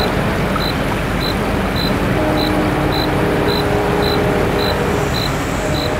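Safetran type 3 high-tone electronic crossing bell dinging steadily, a little under twice a second, over a loud steady rumble.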